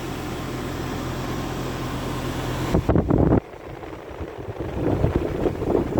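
Janitrol 3-ton heat pump, charged with R134a, running with a steady low hum. Just before halfway, a short, loud rush of air or wind noise hits the microphone. Then the hum drops away and an uneven airy rush builds.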